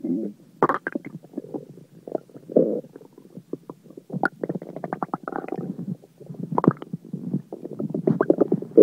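Human stomach and intestines gurgling: a dense, irregular run of bubbling pops and squelching gurgles, with louder gurgles every second or two. It is gas from swallowed air and food being churned through the gut.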